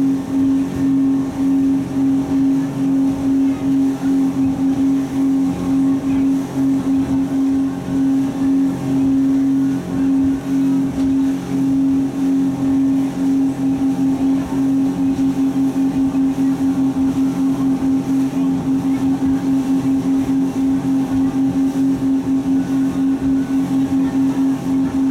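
Speedboat engines running steadily at cruising speed, a loud even drone. The loudness pulses over and over, more quickly and evenly in the second half.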